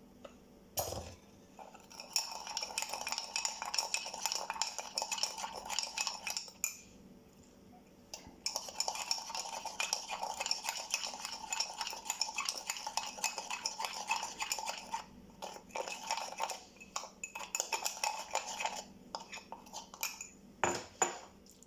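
A spoon stirring a thick paste of cocoa powder, sugar and a little milk in a mug, with rapid ringing clinks against the sides. The stirring comes in two long bouts with a short pause between, then trails off into scattered taps near the end.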